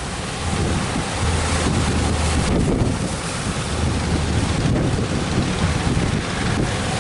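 Ocean surf rolling in, with strong wind buffeting the microphone in a heavy, uneven rumble.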